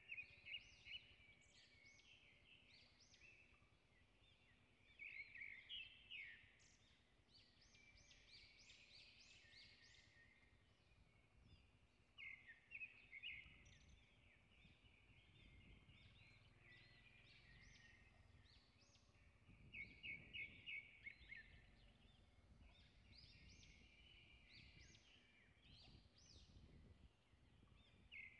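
Faint outdoor ambience with birds calling: bursts of quick, high chirps and trills every few seconds over a low background rumble.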